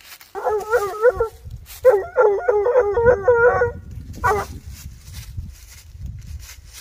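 Young Blue Gascon hound bawling at the base of a tree, treeing a raccoon. There are three bawls with a warbling pitch, the middle one the longest, the last one short. Footsteps rustle in dry leaves underneath in the second half.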